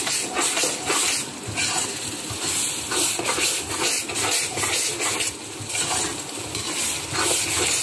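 Onion-tomato masala sizzling in an electric cooker's nonstick pan while a spoon stirs and scrapes through it in repeated strokes.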